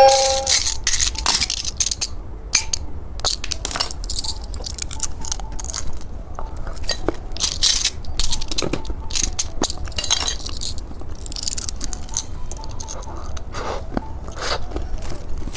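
Irregular crackling, clicking and crinkling from candy and its plastic packaging being handled close to the microphone.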